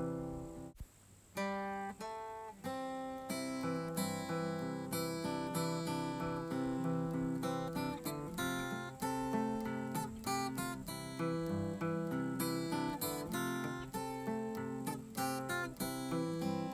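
Background music on acoustic guitar, strummed and plucked chords with a steady rhythm. It dips briefly about a second in, then continues.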